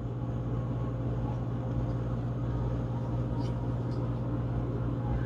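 Oracle card deck shuffled by hand: soft card rustling and a couple of light clicks about three and a half and four seconds in, over a steady low hum.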